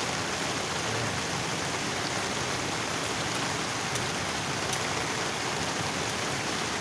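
Steady rushing of water from a waterfall, an even noise with no changes.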